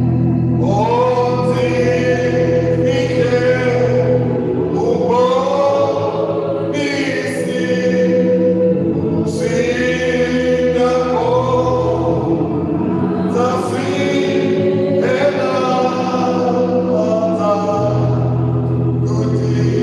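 Gospel worship song: a man sings into a microphone in long held phrases over sustained keyboard chords that change every few seconds.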